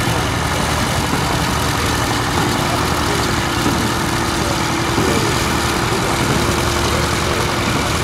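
Vintage Massey tractor and the McCormick baler's own engine running steadily together, a low, even engine sound with a steady tone through most of it.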